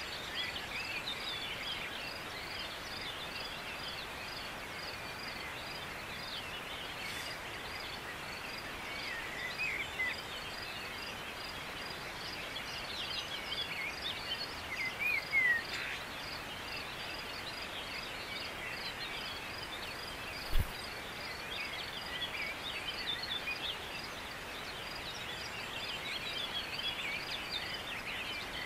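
Mountain ambience: small birds chirping and warbling on and off over a steady hiss, with a fast, evenly repeated high chirp throughout. A single low thump about two-thirds of the way through.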